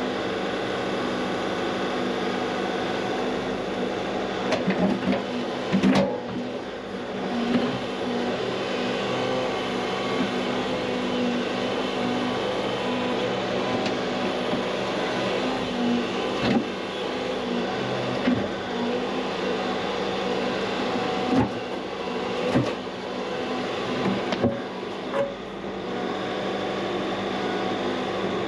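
Excavator engine running steadily under hydraulic load while digging, with a few sharp clunks of the bucket working in rocky ground, the heaviest about five to six seconds in.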